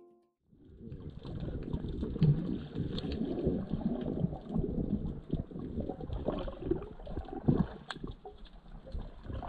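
Water moving and bubbling around a camera recording underwater as swimmers dive past: a muffled, low rumbling gurgle with occasional sharper knocks, starting about half a second in.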